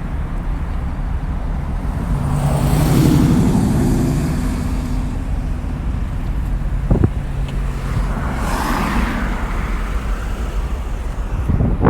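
Road traffic: a vehicle swells past about two to five seconds in and another about eight to nine seconds in, over a steady low rumble, with a sharp click near the middle.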